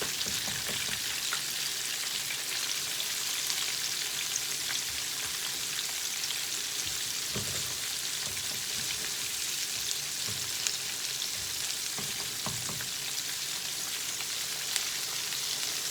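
Flour-dredged chicken pieces deep-frying in hot canola oil in a wok: a steady sizzle with fine crackling, and a couple of soft low knocks along the way.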